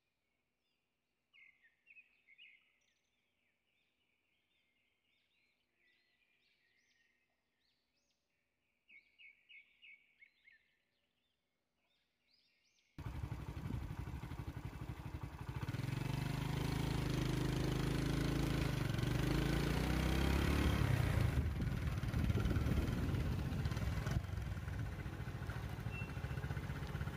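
Birds chirp in short scattered bursts over near-quiet surroundings. About halfway through, the sound cuts abruptly to a loud, steady vehicle engine idling, with a dense rushing noise over it.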